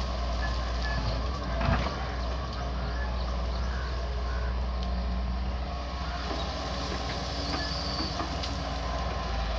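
Diesel engines of a Doosan excavator and a farm tractor running steadily with a deep rumble, with one brief louder thump a little under two seconds in.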